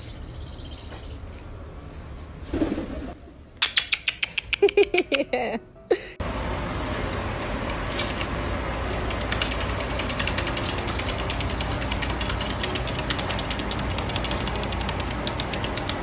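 Rapid, irregular ticking of a white-bellied caique's claws on a wooden tabletop as it walks and hops across it, over a steady background hiss. Before that, about halfway through the first part, comes a short quick string of loud calls.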